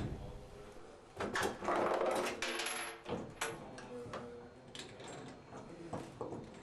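Metal tub-wrench socket scraping and grinding against a shower diverter stem as it is worked loose, for about two seconds, then several light metallic clinks.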